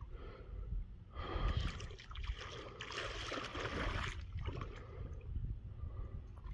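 Splashing and sloshing of water as a person wades barefoot through shallow lake water, loudest for a few seconds from about a second in, over a steady low rumble.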